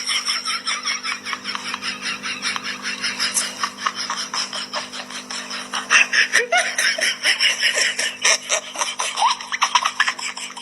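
Continuous high-pitched laughter in quick, repeated giggles, swelling louder again about six seconds in, over a steady low hum.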